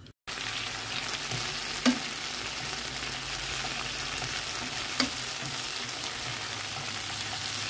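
Chopped kimchi frying in oil in a pan, a steady crackling sizzle as it is stirred with chopsticks. Two sharp clicks stand out, about two seconds in and again about five seconds in.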